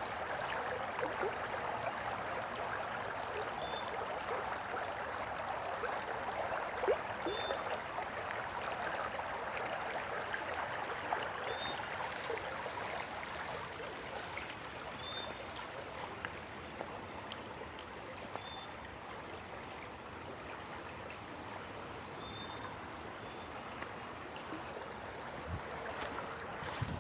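A creek's water running and trickling, a steady rushing. Faint short high chirps repeat every second or so above it.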